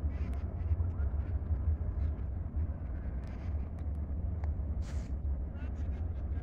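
Steady low rumble of wind buffeting the microphone, with a few faint, short bird chirps over it.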